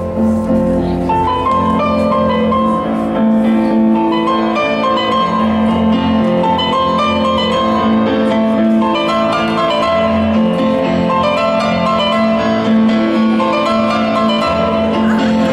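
Instrumental music for the dance: quick runs of stepping high notes over sustained low notes, at a steady level.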